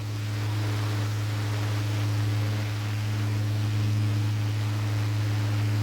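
Small battery-powered DC mini desk fan running steadily: a low motor hum with air rushing from the blades.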